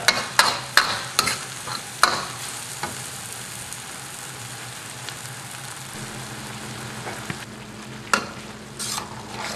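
Eel and spaghetti sizzling in a wok as a metal spatula scrapes and turns them, with several sharp scrapes against the pan in the first couple of seconds, then a steady sizzle. A low steady hum joins about six seconds in.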